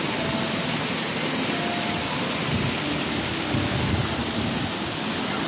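Water falling like rain onto wet paving, a steady even hiss and patter.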